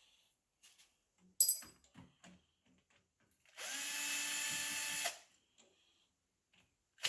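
A power drill-driver spinning steadily for about a second and a half, with its pitch rising as it spins up, while a fuel pump is taken apart. Before it come a few light clicks and knocks of handled parts, with one sharp click the loudest sound.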